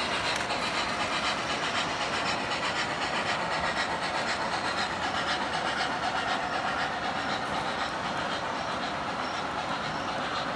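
Model freight train of flatcars rolling steadily past on track, a continuous clatter of wheels on the rails.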